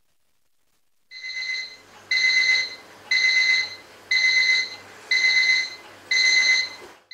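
Electronic alarm clock beeping: six high beeps, about one a second, starting about a second in and stopping near the end.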